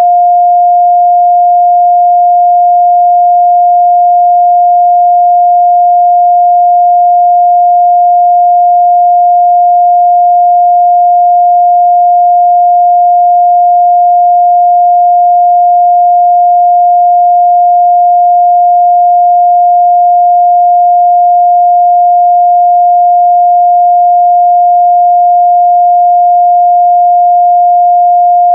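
A steady 706 Hz pure sine-wave test tone, a single unwavering mid-range pitch held without change.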